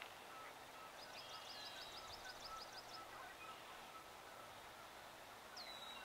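A songbird singing one high trill of about a dozen quick repeated notes, lasting about two seconds, beginning about a second in, and a short high call near the end.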